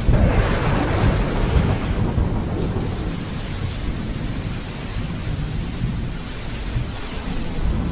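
Thunderstorm: a thunderclap breaks right at the start and rolls off over several seconds into a low rumble, with rain falling steadily throughout.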